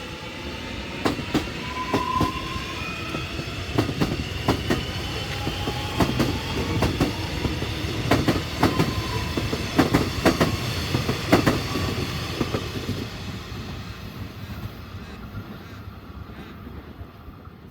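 X'Trapolis electric train pulling out and accelerating. Its traction motors whine, rising in pitch, and the wheels clack over the rail joints ever faster, then the sound fades as the train moves away.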